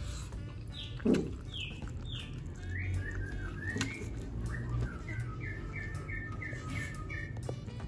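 Birds chirping in quick repeated series of short notes with a few higher falling calls, over a steady low rumble, with one short louder knock about a second in.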